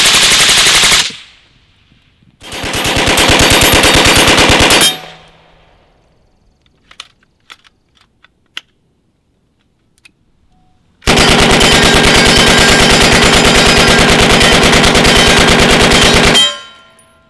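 Full-automatic gunfire in three long bursts. The first ends about a second in, the second lasts about two and a half seconds, and after a few seconds of faint clicks a final burst runs about five seconds.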